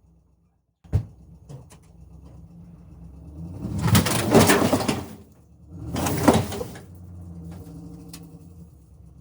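A car engine running steadily, with two loud rushing surges about four and six seconds in.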